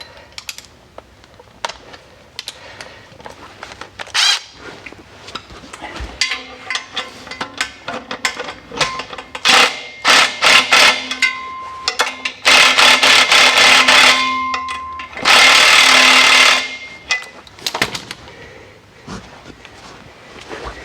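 A power tool running a bolt in to draw the transmission bellhousing up to the engine: clicks and short bursts, then two longer steady runs of whirring near the middle and end.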